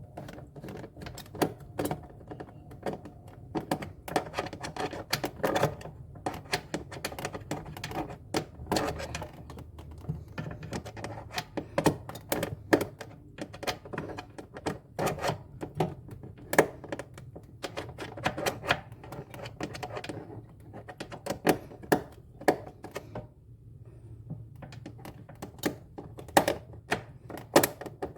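Irregular clicks, taps and knocks from hand work on refrigerator parts as they are taken apart, over a low steady hum.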